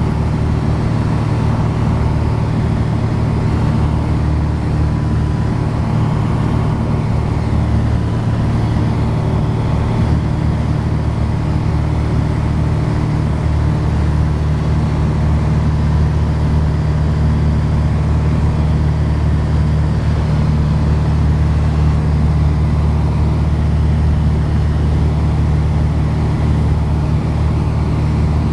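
Steady cabin drone of a Piper Dakota's single piston engine and propeller in cruise flight: a loud, even low hum.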